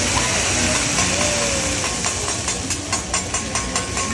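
Food frying on a hot kitchen pan or griddle: a steady sizzle, with sharp popping spatters from about halfway through.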